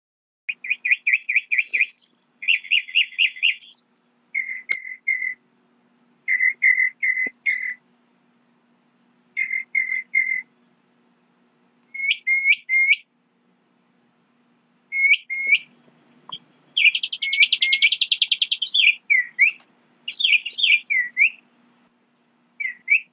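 A songbird singing in repeated phrases of quick whistled notes with short pauses between them, including some rising slurred notes and a fast trill about two-thirds of the way through.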